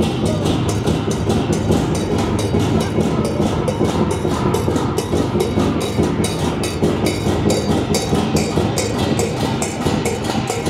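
Chinese gong-and-drum troupe playing: large red barrel drums beaten fast and hard with wooden sticks, with hand cymbals clashing on a steady, rapid beat.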